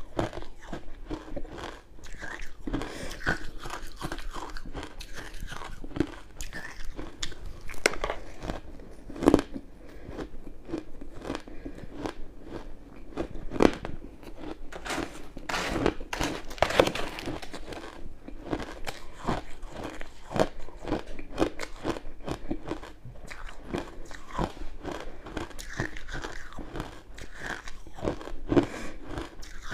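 Close-up crunching and chewing of crushed ice coated in matcha and milk powder: a steady stream of irregular crunches, with louder bites every few seconds.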